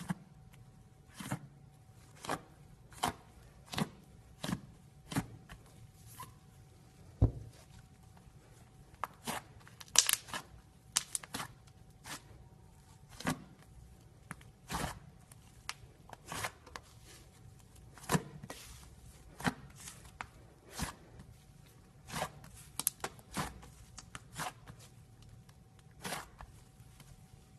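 Homemade slime being kneaded and squeezed by hand, giving a run of sharp clicks and pops, irregular at about one or two a second.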